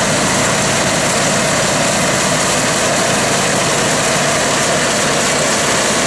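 A tractor pulling an Allis-Chalmers pull-type combine through rice, the tractor's engine and the combine's threshing machinery running together at a steady, even level.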